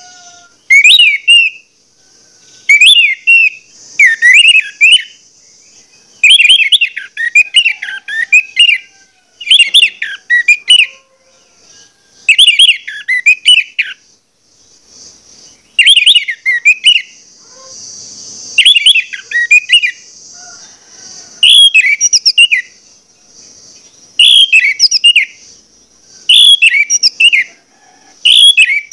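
Orange-headed thrush singing a full, insistent song: about a dozen loud phrases of quick, varied warbling and whistled notes, each a second or two long with short pauses between. A steady faint high hiss runs underneath.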